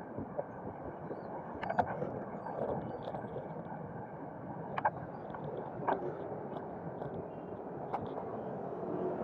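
Steady road and wind noise from riding a bicycle among traffic, with a few sharp clicks or rattles.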